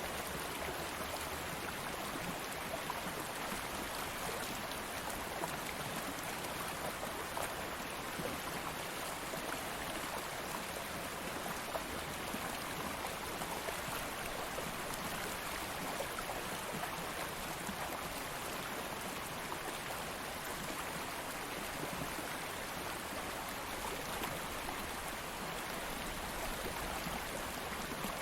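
Stream of water flowing steadily, an even rushing with fine splashing and bubbling.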